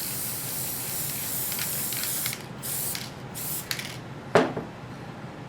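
Aerosol can of Elmer's multi-purpose spray adhesive hissing in one long continuous spray, then three short spurts. About four seconds in comes a single sharp knock.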